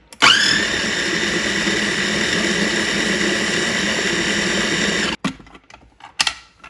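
Food processor motor blending a thin green salsa, spinning up at the start, running steadily for about five seconds and cutting off suddenly. A few clicks of the plastic bowl lid follow as it is taken off.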